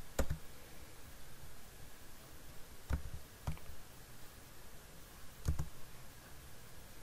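Computer mouse clicking: about four separate, short clicks, a second or more apart.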